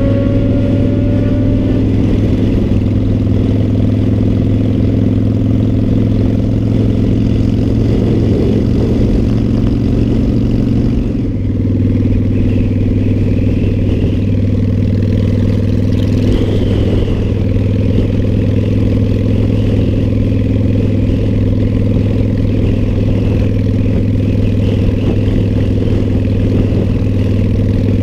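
Motorcycle engine running steadily at cruising speed with wind rush, heard from the rider's seat. About eleven seconds in the engine note drops slightly and then holds steady again.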